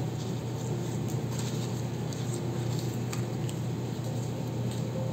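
Small paper leaf cutouts being handled by fingers: faint scattered light taps and rustles as they are picked up and set down, over a steady low hum.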